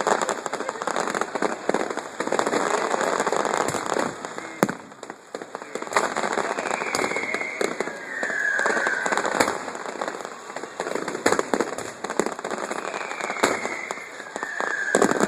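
Fireworks display: dense crackling and repeated sharp bangs from bursting shells, with four short whistles that fall slightly in pitch, two about halfway through and two near the end.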